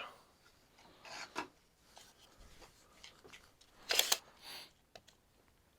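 Scattered scrapes and rubs of tools being handled on a workbench, with a short, louder scrape about four seconds in and a fainter one just after.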